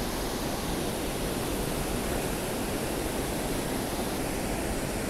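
Loud rushing water of a river pouring over falls: a steady, even rush with no letup.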